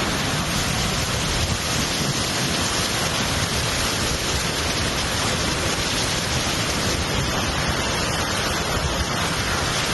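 Steady, even noise of heavy hurricane rain and wind.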